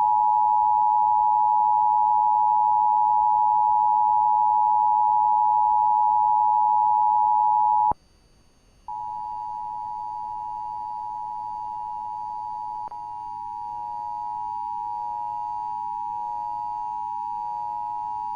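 Emergency Alert System attention signal: a steady two-tone alarm, the pair of tones at about 853 and 960 Hz sounding together. It plays loud for about eight seconds, cuts out for about a second, then resumes quieter, with a click about two-thirds of the way through.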